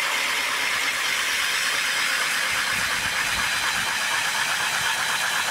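Cordless drill driving an ice auger into the ice: a steady whir with a hiss.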